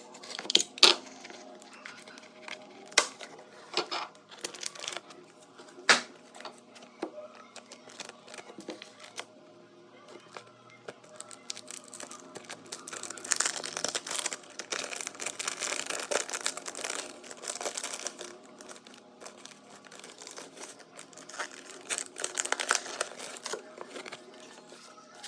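Packaging being torn open and crinkled by hand, with a few sharp knocks and clicks early on and longer stretches of crackling handling later.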